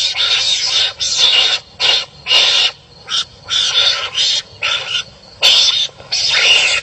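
Wild animals barking harshly at each other, a run of rough calls about half a second long each, following one another with short gaps.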